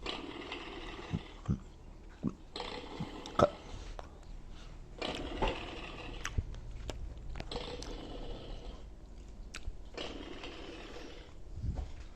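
Fisher-Price Code 'N Learn Kinderbot toy robot playing short sound effects through its small speaker: a string of hissing, crackly clips each a second or two long, with sharp clicks among them.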